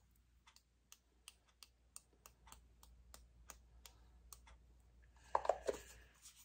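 Light clicking taps, about three a second, as paint is flicked from a paintbrush to splatter the paper, with a louder knock or clatter about five and a half seconds in.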